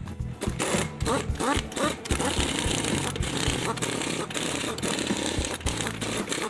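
Background music with a steady beat, overlaid from about half a second in by a dense, continuous mechanical rattle.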